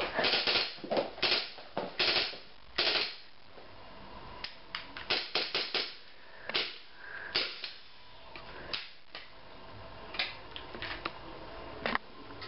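Computer keyboard being typed on and hit in irregular bursts of key clicks and taps, with short pauses between; the loudest hits come in the first few seconds.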